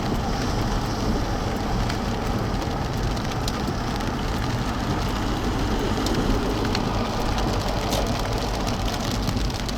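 Steady heavy rain beating on a car, with many small drop ticks over a constant noise and a low rumble underneath.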